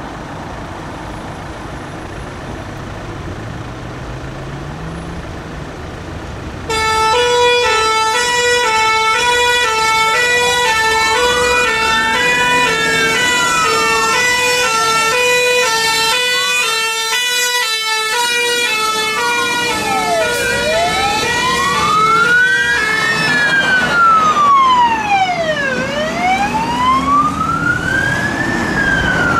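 Fire engines responding: after an engine rumbling with a rising pitch, two-tone air horns start suddenly about seven seconds in, alternating high and low, soon joined by a wail siren rising and falling slowly. A second wail joins later, and the two-tone stops shortly before the end while the wailing goes on.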